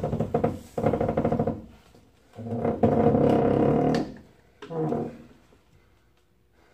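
Power tool run in four short bursts of buzzing, rattling whir, the longest about a second and a half, during teardown of rusted suspension bolts.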